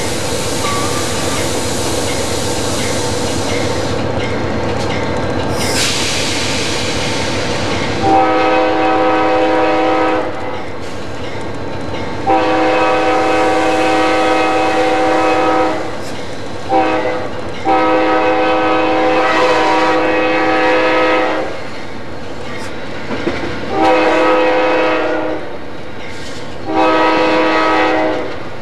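Amtrak P40-8 locomotive's air horn, heard from inside the cab, sounding the grade-crossing signal of long, long, short, long, then two shorter blasts, over the rumble of the locomotive and the clack of wheels on rail. Before the horn, for the first several seconds, comes a loud hiss in two spells.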